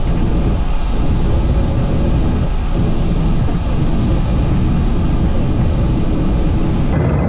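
Loud rumble in the cockpit of a Bombardier Global Express business jet rolling fast down the runway after touchdown: engine noise mixed with the roar of the wheels on the runway. Shortly before the end the sound switches abruptly to a thinner jet noise with a steady whine.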